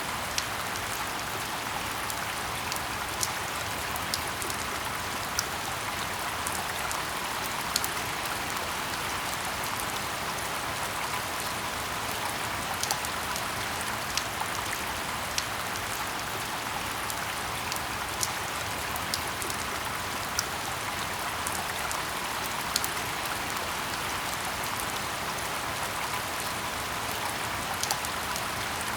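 Steady rain falling in a forest: a constant even hiss, with scattered sharp drop hits standing out every second or so.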